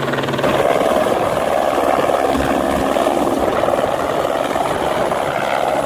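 Helicopter running close by: a steady rush of rotor and turbine noise that gets louder about half a second in.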